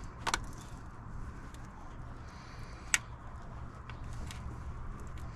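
Hand tools working on an engine's old coolant bypass hoses and pipes: two sharp clicks, about 0.3 s and 3 s in, with a few fainter ticks over a faint steady hum.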